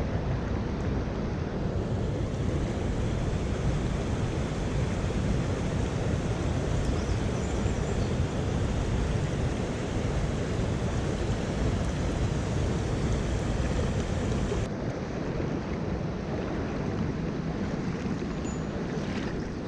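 Steady rush of a mountain stream's flowing water, with a heavy low rumble; the highest hiss drops away abruptly about fifteen seconds in.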